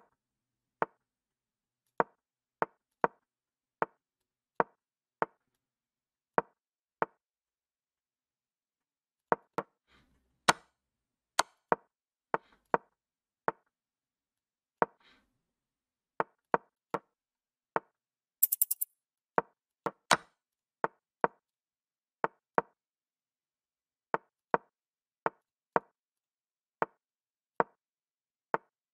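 Short wooden-sounding knocks of an online chess board's move sound effects, one per move in a fast blitz endgame, coming about one or two a second. They pause for a couple of seconds about a quarter of the way in. A quick run of several knocks with a brief high-pitched sound comes a little past halfway.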